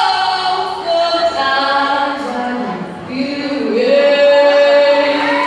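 A young female singer's voice, singing solo and unaccompanied into a microphone, holding long notes. Near the end she slides up into one long sustained note.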